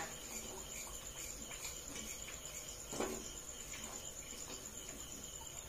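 Jalebi batter spirals frying in hot oil in a frying pan, over a steady high chirping of crickets; a single light knock about three seconds in.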